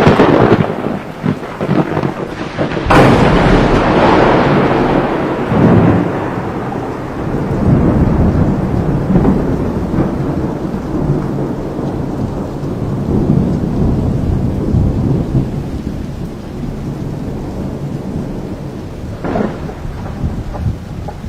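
Thunder: a sharp clap right at the start and another about three seconds in, each rolling off into a long rumble, with a further clap near the end.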